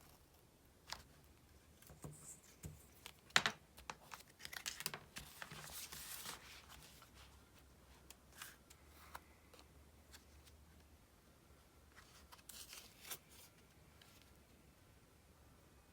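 Stickers being peeled off their backing sheet and pressed onto a paper diary page: scattered light clicks and taps, one sharp click about three seconds in, and rustling peeling sounds, longest from about four to six seconds in and again briefly near thirteen seconds.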